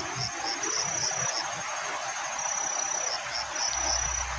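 An insect chirping in a high, thin tone that comes and goes, partly as a steady trill and partly as quick pulses about three a second, over a steady background hiss.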